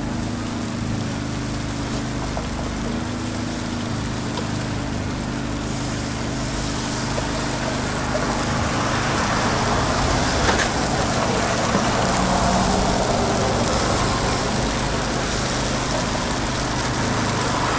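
Takoyaki batter sizzling in the wells of a hot takoyaki pan, growing louder from about six seconds in, over a steady low hum.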